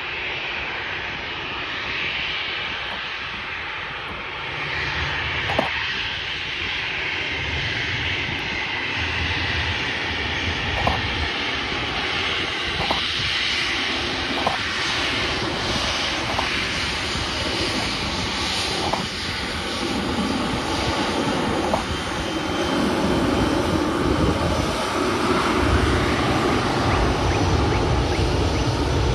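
Airbus A321's twin jet engines running at low thrust as the airliner rolls along the runway: a steady whine over a rumble, growing louder near the end. A few faint ticks sound over it.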